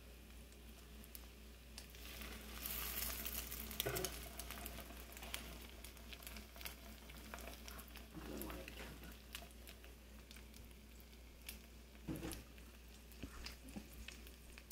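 Egg-and-milk-soaked bread slices frying in butter and coconut oil in a pan: a faint steady sizzle full of small crackling pops, a little louder a couple of seconds in.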